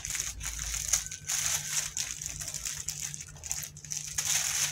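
Clear plastic shirt packaging crinkling and rustling irregularly as it is handled.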